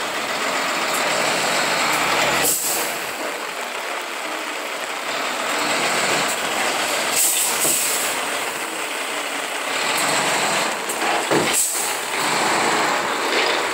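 Dump truck running while tipping its load of sand: a steady, even noise with a few sharp knocks.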